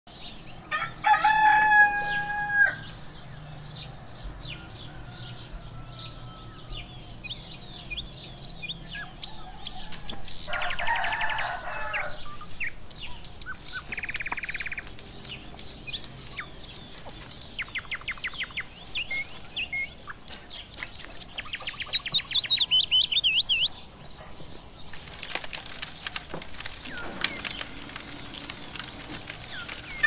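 A rooster crows once about a second in, over small birds chirping and singing, with a fast falling trill about two-thirds of the way through. Near the end comes a quick run of sharp crackling clicks.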